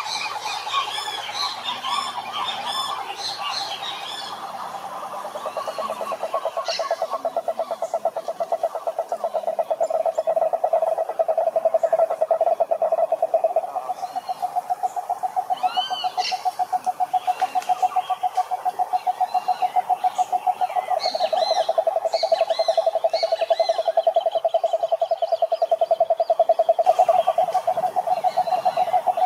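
Frogs croaking in a chorus: a steady, fast-pulsing trill that runs on without a break. Higher chirps and whistles sound over it, thickest in the first few seconds.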